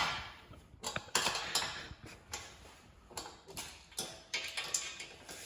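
Irregular small clicks and taps of a big GT wing's mounting hardware being handled and adjusted by hand on a car's boot lid, about two or three a second.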